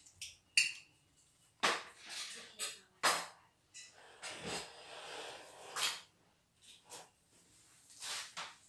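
Spoons and tableware knocking and clinking against plates and dishes, a handful of sharp separate strikes, one ringing briefly, with some rustling between them.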